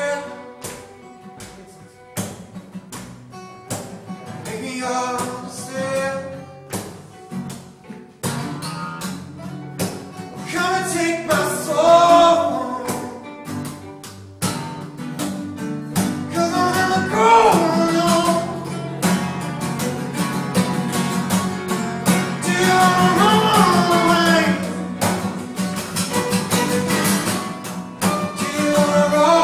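Live acoustic folk music from two strummed acoustic guitars and a bowed fiddle. The first several seconds are quieter, and the playing turns fuller and louder from about ten seconds in.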